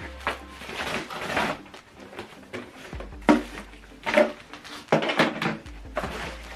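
Handling noise from a soundbar's box and packaging: a series of short rustles and knocks as the contents are moved and set down.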